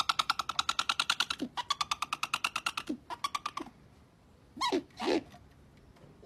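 Great grey owl giving a rapid chittering trill of about a dozen pulses a second, in three runs over the first three and a half seconds, then two short calls that slide down in pitch near the end.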